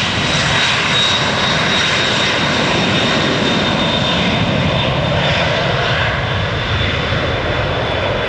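Twin-engine jet airliner's turbofan engines at high power on its takeoff run: loud, rushing noise with a steady high whine, easing off slightly near the end.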